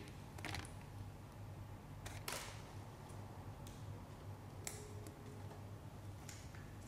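Faint rustles and a few small clicks of fresh coriander sprigs being picked through by hand, over a low steady hum.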